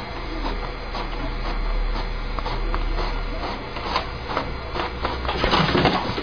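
HP inkjet printer printing a page: a steady motor hum with the print-head carriage clacking about twice a second, and a louder rush near the end as the sheet is fed out into the tray.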